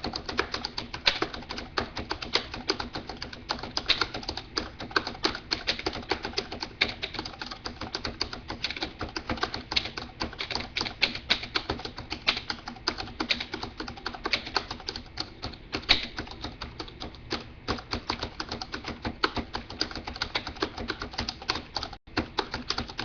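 Rapid, irregular keystrokes on a keyboard as a message is typed out.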